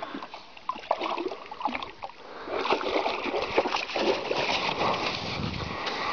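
A yellow Labrador retriever splashing through shallow water. The splashing grows louder and busier about two and a half seconds in as the dog wades out onto the snowy bank.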